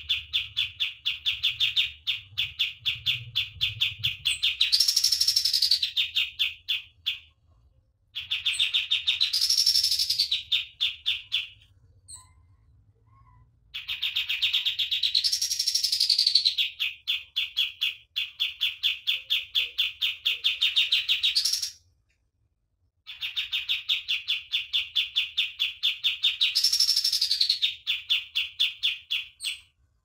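Kapas tembak songbird singing its rapid 'tembak' song: long runs of quick, evenly repeated sharp notes, several a second, each run carrying a swooping note that rises and falls in pitch. Four such phrases, broken by short pauses.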